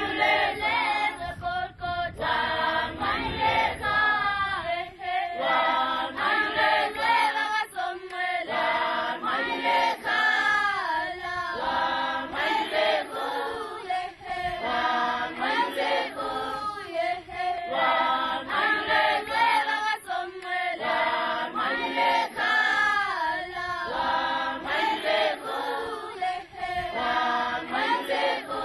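A choir of schoolchildren singing together, many voices in unison, phrase after phrase.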